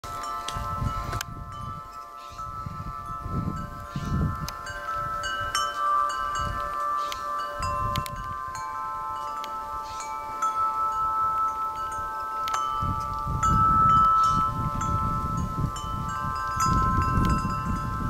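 Metal tube wind chimes ringing in the breeze: several overlapping tones that hang on, freshly struck at irregular moments, with a low rumble coming and going underneath.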